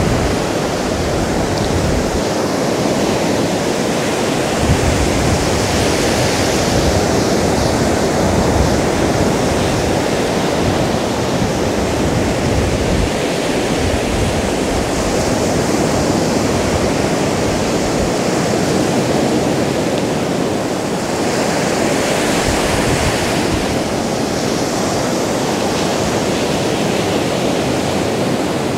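Black Sea surf breaking and washing up a sandy beach in a steady rush. The hiss swells now and then as a sheet of foam runs up the sand.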